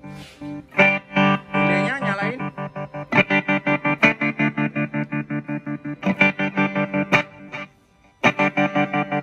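Electric guitar played through a Blackstar ID Series 25-watt combo amplifier with a 10-inch speaker, effects switched on. A few bent notes come first, then quick repeated picked notes. The playing breaks off briefly near the end and starts again.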